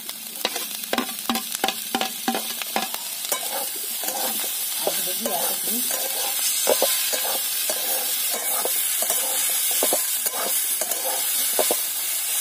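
Flat metal spatula stirring and scraping snails in their shells with potatoes and tomato in a metal wok, with frequent clinks and scrapes over a steady sizzle of frying.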